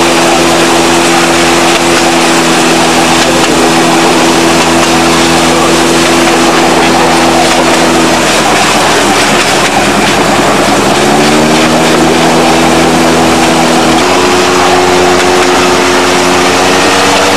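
Engine of a narrow-gauge railway vehicle running along the line, its note falling away about eight seconds in, rising again around eleven seconds and stepping up once more near fourteen seconds.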